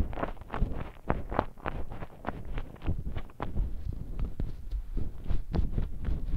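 A person chewing donuts with their mouth close to the mic: irregular wet mouth clicks and smacks, several a second.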